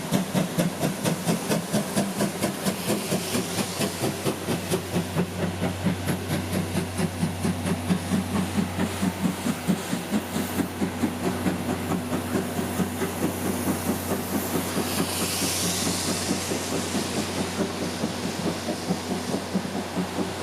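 C11 steam tank locomotive working under steam, its exhaust beating in a steady rhythm of about four to five chuffs a second. A hiss of steam rises over the beat about three quarters of the way in.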